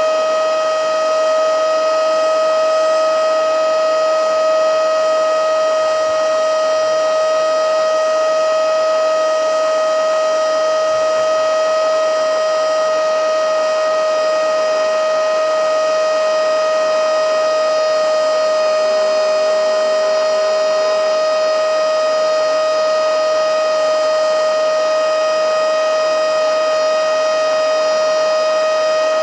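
Mini handheld blowing/sucking vacuum cleaner (XCQ-5588 / XCQ-508) running on a fresh charge at full power: a loud, steady, high-pitched motor whine over the rush of air.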